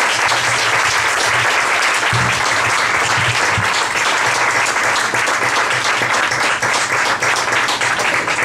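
Applause from a small audience and panel: dense, steady hand-clapping that begins to thin into separate claps near the end.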